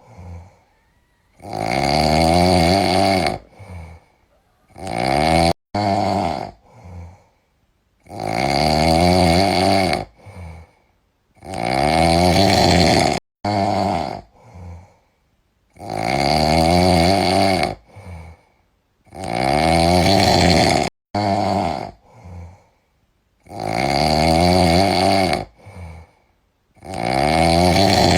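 A sleeping cat snoring in slow, regular breaths. Each snore is a loud rattling buzz of one to two seconds, coming every three to four seconds.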